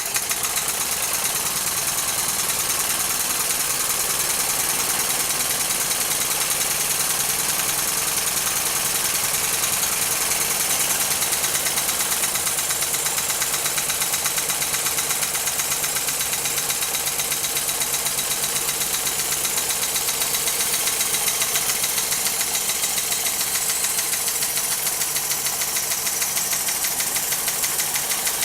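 A PM Research #1 single-cylinder model steam mill engine running under load, driving a model sawmill. It starts abruptly and then holds a steady, fast, even beat throughout.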